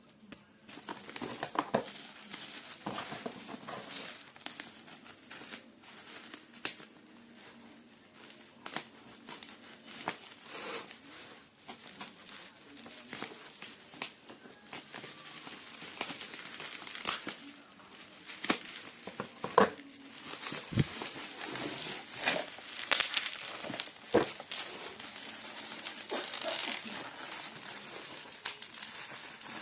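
Crinkling and rustling of something being crumpled and handled, with many scattered sharp clicks and knocks; no motor is running.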